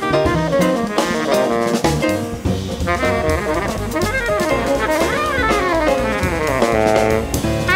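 Jazz saxophone soloing in quick, winding runs over a rhythm section of piano, double bass and drum kit with cymbals.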